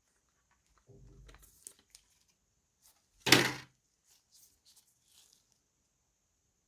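Soft handling noises inside an open laptop, then one sharp clack about three seconds in, likely a SO-DIMM RAM module being pressed down into its slot, followed by a few faint ticks.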